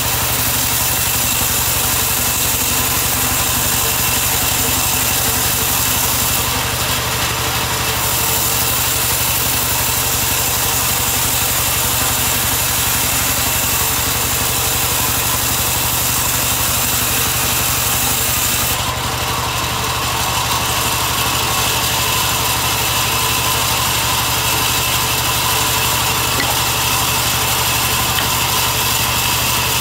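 Vertical band saw running steadily and ripping a log lengthwise: a constant machine drone with the hiss of the blade in the wood. The sound shifts briefly twice, about a quarter of the way in and again about two-thirds in, with a slight dip in level.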